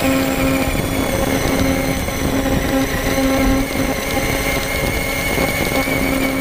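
Onboard sound of a large-scale RC truck driving over grass: a steady motor and drivetrain hum that cuts in and out several times, under a constant rush of wind and tyre noise.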